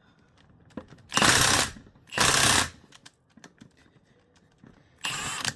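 Impact wrench hammering on a puller to draw a stuck supercharger pulley hub off its snout: two short bursts about a second apart, then a longer burst starting near the end.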